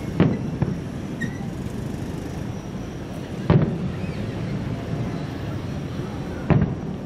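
Distant aerial firework shells bursting: three booms about three seconds apart, over steady background noise.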